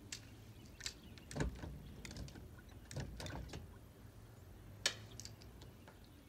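Light clicks and knocks from a fishing rod and reel being worked, in small clusters with one sharp click about five seconds in, over a faint low hum.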